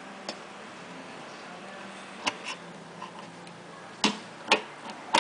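Screwdriver clicking against the metal presser-bar parts inside the open head of a Juki DDL-5550 industrial sewing machine. A handful of separate sharp taps, the loudest two about four seconds in, over a faint steady hum.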